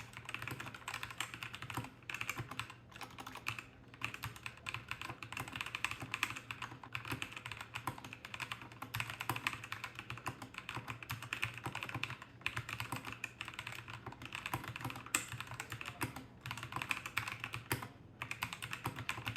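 Ziyoulang K68 mechanical keyboard being typed on quickly and continuously, a dense stream of key clicks with a few brief pauses.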